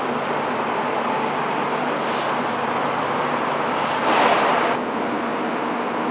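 Forklift engine running amid the steady machinery din of a ship's cargo deck, with two brief hisses and a louder surge about four seconds in that cuts off suddenly.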